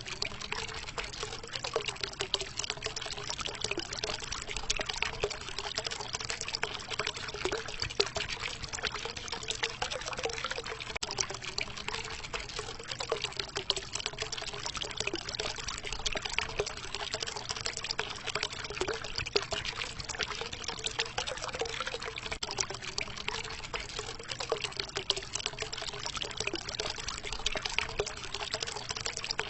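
Water fountain running, water trickling and splashing steadily into a pool, with a low bubbling note that wavers throughout.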